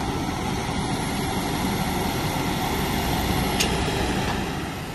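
Kobelco crawler excavator's diesel engine running steadily while it loads sand into a truck, with a single short click about three and a half seconds in.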